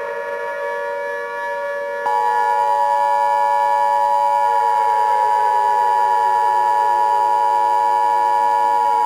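Emergency Alert System warning sounds. A steady tone plays, then about two seconds in a loud, steady high alert tone comes in and holds. Under it a siren slowly falls in pitch.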